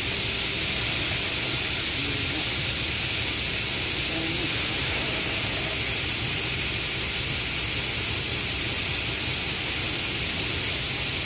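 Palm kernels pouring in a steady stream from a bunker chute into a steel truck bed: a continuous rushing hiss at an even level.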